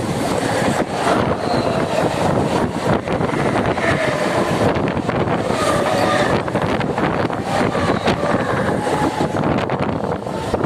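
Mumbai suburban electric local train running, heard from on board: a loud, continuous rattle of wheels and coach with many quick clatters, and wind noise on the microphone.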